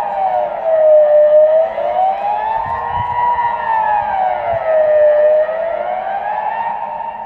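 Civil defence siren sounding the Swiss general alarm during its annual test: a steady wail that rises and falls smoothly, one full cycle about every four seconds.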